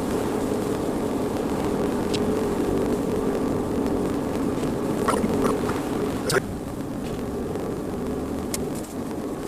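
Car driving, a steady engine and road noise. A few sharp clicks come about five to six seconds in, and the noise drops a step just after.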